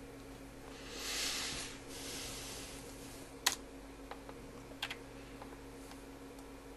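Steady electrical hum from the computer with a short soft hiss about a second in. Then come two sharp desk clicks about a second and a half apart, with a few fainter ticks, as from a keyboard or mouse.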